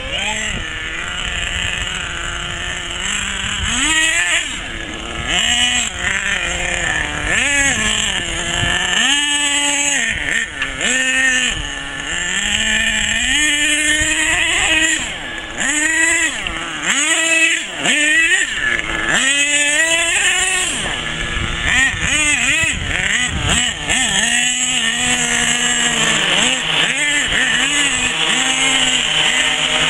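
Small two-stroke nitro engine of an HPI Savage 4.6 RC monster truck revving up and down again and again, its pitch swooping high and falling back with each burst of throttle as the truck is driven.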